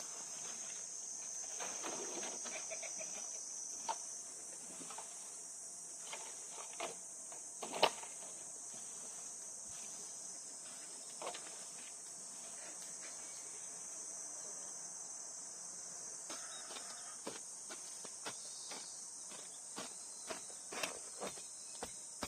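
Steady high-pitched chorus of summer insects, with scattered light knocks and clicks over it. The sharpest knock comes about eight seconds in.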